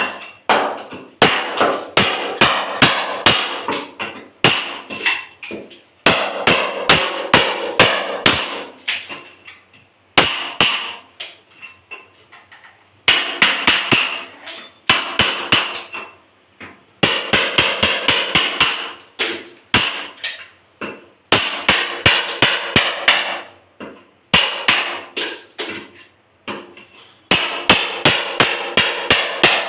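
Repeated hammer blows breaking tiles to reach a leaking pipe, about three sharp ringing strikes a second in runs of a few seconds with short pauses between.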